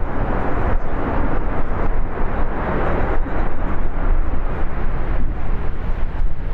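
Strong wind buffeting the camcorder's microphone: a loud, steady rumbling roar that swells a little about a second in.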